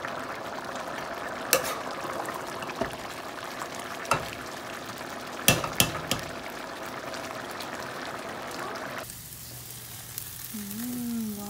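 Rice and vegetables for pulao bubbling at a boil in a steel pot, with a slotted spoon stirring and clinking against the pot about five times. About nine seconds in, it gives way to the quieter sizzle of chicken and kebabs on a gas grill.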